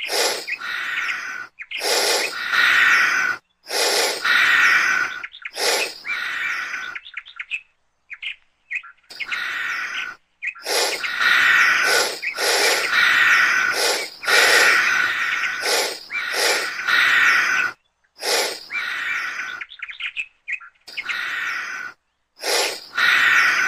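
Chirping, bird-like calls in dense stretches of a second to a few seconds, each cut off abruptly by a short silence.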